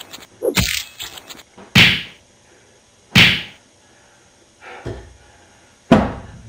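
A series of hard whacks and thuds. There is a quick cluster about half a second to a second and a half in, two loud single hits near two and three seconds in, a softer one near five seconds, and a sharp loud one near six.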